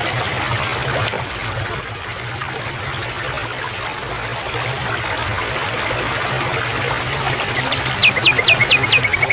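Water trickling and flowing steadily, like a small stream, over a low steady hum. About eight seconds in, a bird gives a few falling whistles and then a fast run of short repeated notes.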